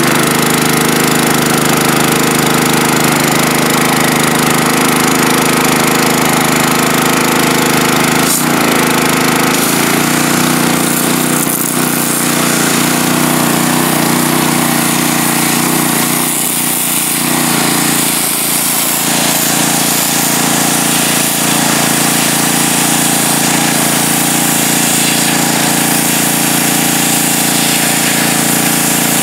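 Pressure washer running loud and steady while its wand sprays water onto a muskrat pelt nailed to a board. The machine's pitch shifts briefly about eight seconds in and again around seventeen to nineteen seconds in.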